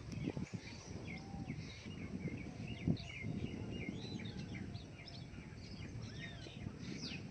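Several small birds chirping and twittering in quick, overlapping calls throughout, over a low rumble with a couple of soft thumps, one just after the start and one about three seconds in.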